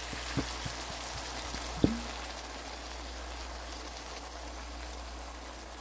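Sautéed tomatoes, onion and garlic frying with a steady crackling sizzle as fermented anchovy paste (ginamos) is poured into the pan. A few light clicks in the first two seconds, the sharpest about two seconds in.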